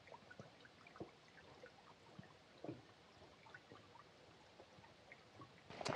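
Near silence: a small forest stream trickling faintly, with scattered soft ticks.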